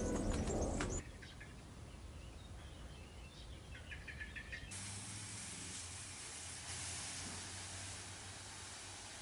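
Birds chirping faintly, then from about halfway a steady hiss of water spraying from a garden hose onto a lawn.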